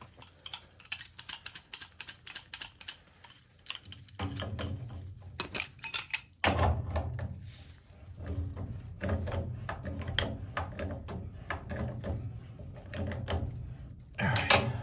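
Metal tools and fittings clinking and tapping in short, irregular clicks, with a steady low hum that starts about four seconds in.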